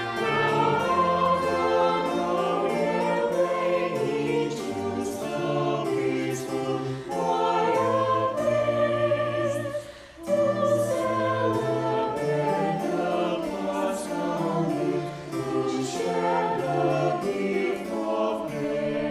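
Mixed-voice virtual choir of men and women singing in parts, sustained sung phrases, with a brief pause between phrases about ten seconds in.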